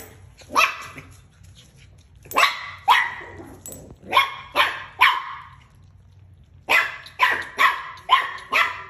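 Pomeranian puppies barking in play: about eleven sharp barks in three quick volleys.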